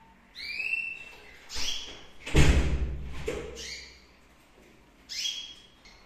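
Red factor canary chicks, about 16 days old, giving short calls four times, with a loud thump a little over two seconds in.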